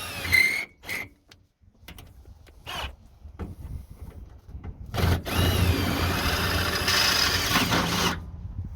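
Power drill drilling holes: a couple of short bursts, then a steady run of about three seconds that stops abruptly.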